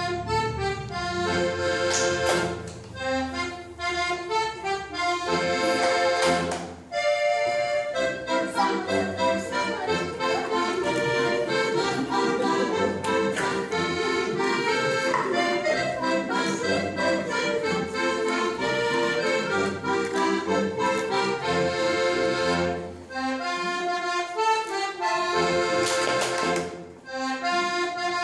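Button accordion playing a lively folk dance tune in chords, with a few short breaks between phrases.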